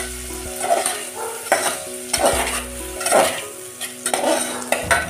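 Metal spoon stirring boiled green peas into a frying onion-tomato masala in an aluminium pot, scraping against the pot in strokes about once a second while the oil and masala sizzle.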